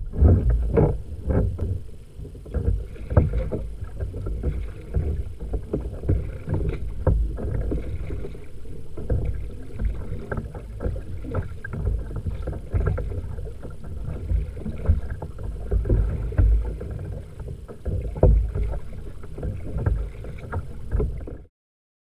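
Kayak being paddled: the paddle splashes and water slaps against the hull, picked up by a GoPro mounted on the deck, with a heavy low rumble throughout. The sound cuts off suddenly near the end.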